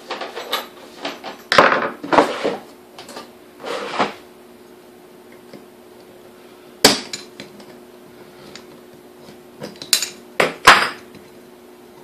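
Hand tools clinking and knocking against the coffee mill's housing as it is taken apart with pliers: clusters of short sharp clanks, a group early on, a single loud one in the middle and the loudest near the end, over a faint steady hum.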